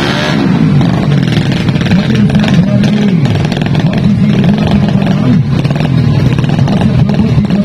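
Tuned four-stroke underbone drag bike engine of the 200 cc class, revving in place before a launch: its pitch rises and falls again and again as the throttle is blipped.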